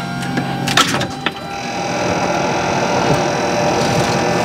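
ATR 72-500 turboprop engine starting, heard from inside the cockpit. A rising whine and two sharp clicks come early, then from about a second and a half in a rush of turbine noise with high steady whistles builds and grows louder.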